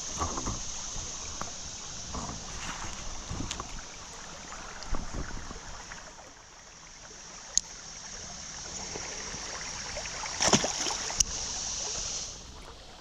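Fast creek current rushing around a kayak, with a few knocks and splashes from the boat and paddle. The rush drops away about twelve seconds in.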